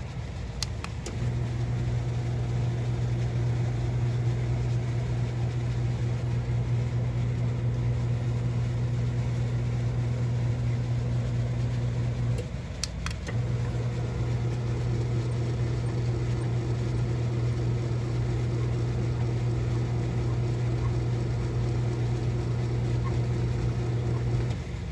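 Whisper Drive garage door opener running with a steady motor hum. It starts with a click about a second in, runs for about eleven seconds, stops with a click, then starts again a second later and runs for another eleven seconds or so.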